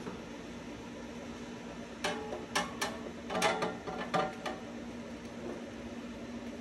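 Steady hum of a Blackstone griddle's air fryer fan running. From about two to four and a half seconds in, a string of metal clanks and rattles comes from the metal air fryer basket being pulled out and handled.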